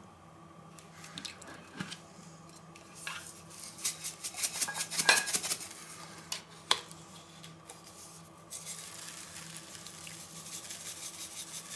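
Metal spice tin of dried rosemary being handled and opened, with several sharp clicks and clinks of the tin and its lid. About two-thirds of the way in, a steady dry rustle begins as the rosemary is shaken from the tin onto boiled potatoes in a plastic tub.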